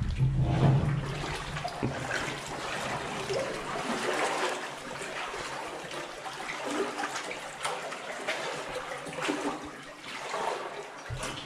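Water sloshing and splashing unevenly as people wade through a flooded mine adit.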